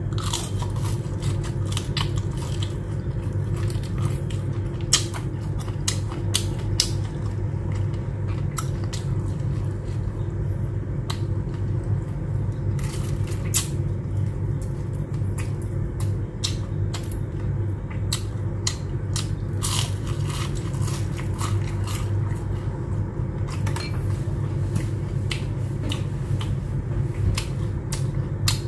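Close-up chewing and biting of crispy fried shrimp with the shells left on, with many irregular sharp crunches and wet mouth clicks over a steady low hum.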